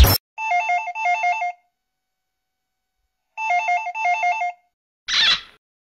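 Electronic telephone ringtone: a warbling trill rung in a double ring, repeated once about three seconds later, followed near the end by a short whoosh.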